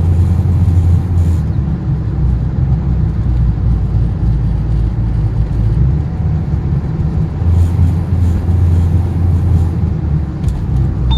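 Toyota RAV4 running along, a steady low drone and rumble with hiss from the road, the drone swelling twice, near the start and again about two-thirds of the way through: the kind of extraneous noise and vibration the owner is recording.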